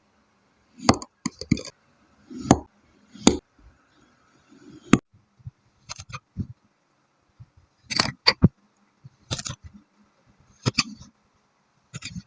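Kinetic sand being squished and crunched by hand: about a dozen separate crisp crunches and soft thuds, irregularly spaced.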